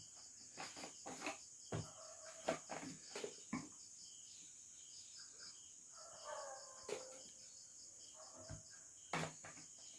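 Faint steady high-pitched chirring of crickets, with a scatter of light knocks and clicks.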